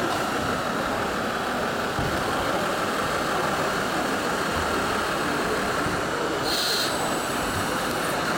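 Steady engine sound from a radio-controlled model Scania heavy-haul truck driving slowly, over the even background noise of an exhibition hall, with a short hiss about six and a half seconds in.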